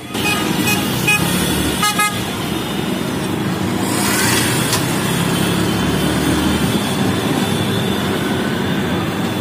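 Auto-rickshaw engine running steadily, heard from inside the open passenger cabin amid street traffic. A vehicle horn gives several short toots in the first two seconds.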